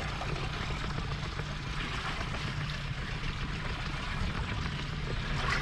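A boat's engine running steadily, a low hum under an even hiss of water and air.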